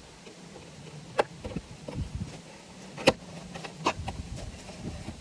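A handful of sharp, irregular clicks and knocks as a car's side-mirror and turn-signal parts are handled and worked on, the loudest about three seconds in, over a faint steady low hum.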